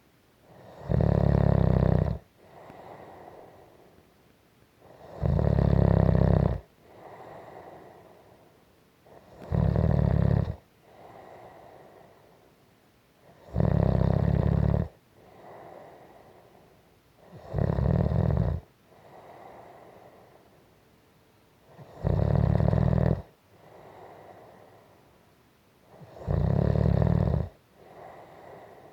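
Snoring in a steady rhythm: a loud snore about every four seconds, each lasting a little over a second, with a quieter breath between them.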